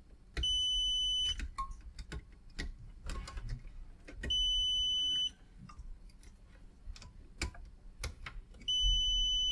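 Multimeter continuity beeper sounding three times, a steady high beep of about a second each about four seconds apart, as the test probes bridge each inverter fuse in turn; an unbroken beep means the fuse is intact. Small ticks of the probe tips touching metal between the beeps.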